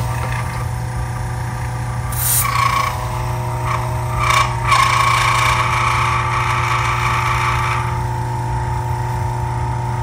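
Arno VR40 Ambience desk fan's electric motor running with its blade removed: a steady hum with several steady tones. A higher whine with a few light knocks joins about two seconds in and stops about eight seconds in.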